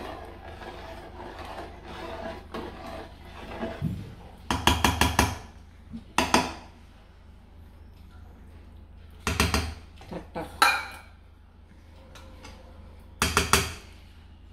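Steel spoon stirring rice in coconut milk inside a metal rice cooker pot, then several loud clanks of steel utensils against the pot, one a quick rattling run of clinks. Near the end, the metal lid clanks onto the pot.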